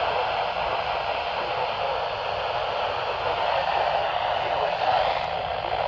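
Radio receiver static: a steady hiss heard through a radio's narrow, speaker-like sound, with no clear speech.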